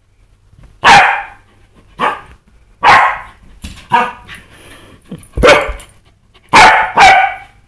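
Pembroke Welsh corgi giving excited play barks while chasing a laser dot: loud, short single barks about a second apart, with two quick barks close together near the end.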